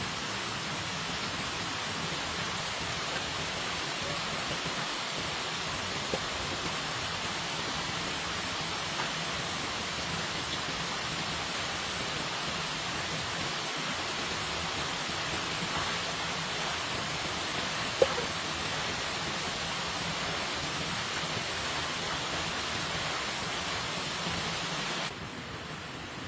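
Steady rain falling, an even hiss with a few faint taps and one sharp click past the middle; it drops away abruptly a second before the end.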